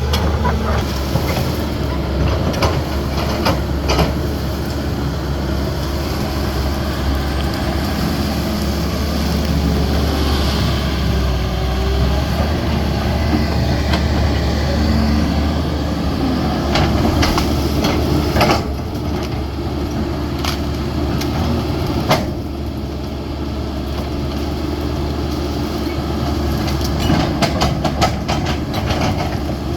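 CAT 320D excavator's diesel engine running steadily under working load, with repeated sharp knocks and clanks from the machine as it works, in clusters a few seconds apart.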